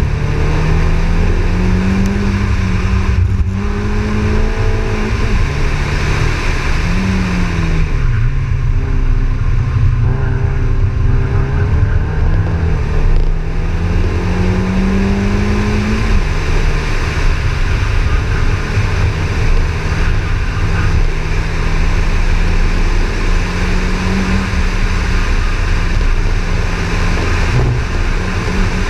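VW Polo Cup race car's 1.4-litre engine running hard on a track run, revving up and dropping back several times as it is driven through gears and corners, then holding steady revs through the second half. Heavy wind noise buffets the microphone throughout.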